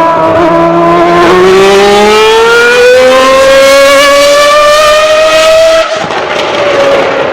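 Ferrari 412 T2 Formula One car's 3.0-litre V12 engine at full throttle, its pitch climbing steadily as the revs rise. About six seconds in it suddenly drops in loudness and the pitch falls away.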